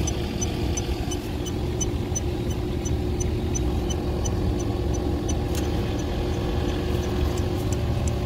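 Electronic refrigerant leak detector ticking at an even rate, about four short beeps a second, with no rise in rate. Under it is the steady hum of the walk-in condensing unit running.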